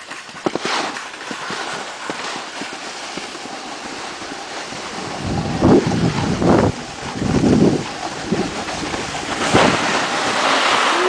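Snowboards sliding and scraping over hard-packed snow, with wind noise on the microphone. Several louder scrapes come in the second half.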